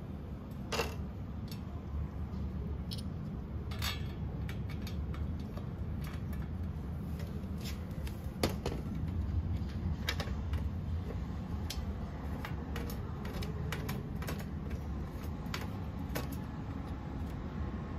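Scattered light clicks and taps of small plastic and metal fittings being handled and fitted onto the metal frame of a mirror stand, over a steady low hum.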